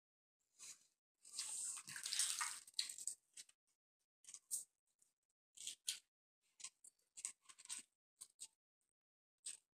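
Fried chicken drumstick torn apart by hand, with a long crackling rip of the crisp breading and meat about a second in, then short, irregular bursts of chewing.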